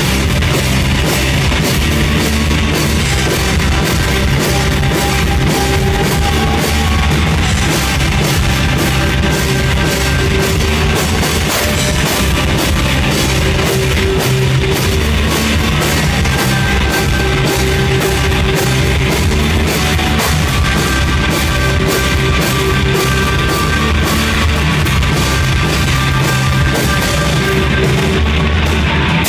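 Live rock band playing loud: electric guitar with held, ringing notes over bass and a drum kit pounding out steady drum and cymbal strokes.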